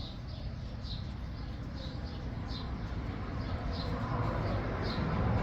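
A small bird chirping, a short high note repeated every half second or so, over a low rumble that grows louder near the end.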